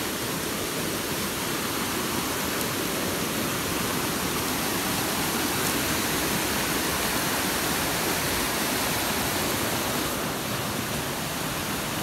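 Waterfall rushing steadily, an even hiss of falling water with no breaks.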